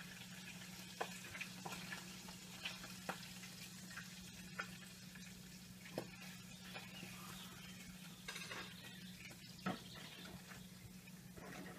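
Cats crunching dry kibble from a plastic bowl: a faint crackle with scattered sharp clicks a second or two apart, over a steady low hum.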